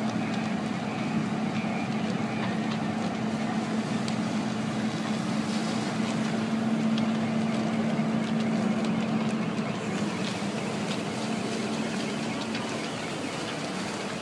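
A steady engine drone with one low hum, a little louder in the middle, over a constant rushing noise.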